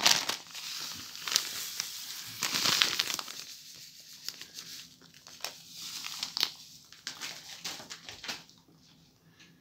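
Food packets crinkling and rustling as dry breadcrumbs and semolina are poured from them into a bowl. Loudest in the first three seconds, then thinning to scattered crackles that die away near the end.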